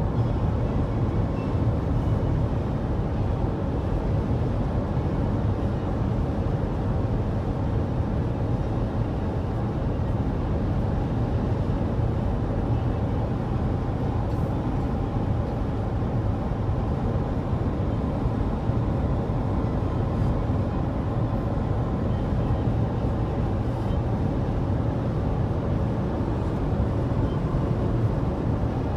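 Steady road and engine noise inside a moving car's cabin: an even low rumble with a fainter hiss above it, unchanging throughout.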